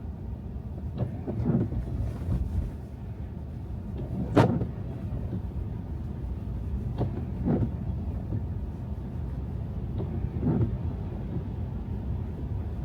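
Car driving on snowy roads: a steady low road and tyre rumble, with short thumps every few seconds, often in pairs, the loudest about four seconds in.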